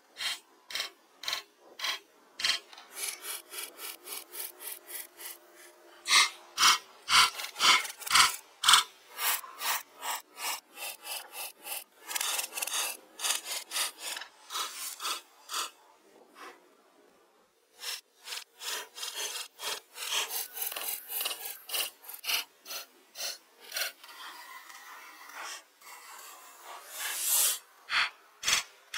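Hand tools working wood: a long series of rhythmic rubbing and sawing strokes, about two to three a second. A run of heavier sharp knocks on the wood comes about six seconds in.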